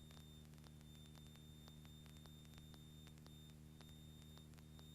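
Near silence on the aircraft's intercom audio feed: a faint steady electrical hum with faint scattered clicks.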